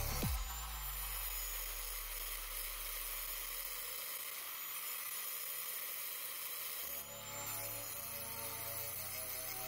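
Angle grinder with a 4.5-inch grinding disc grinding the cutting edge of a steel lawn mower blade: a steady hissing grind with a thin high tone running through it, brighter near the start and again about seven seconds in.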